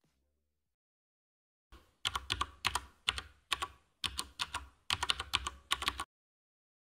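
Computer keyboard typing sound effect: quick runs of key clicks that start about two seconds in and stop about a second before the end, as on-screen text is typed out.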